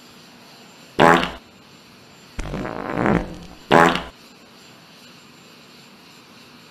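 Comedy fart sound effect blown three times: a short loud blast about a second in, a longer one in the middle, and another short loud blast just before four seconds in.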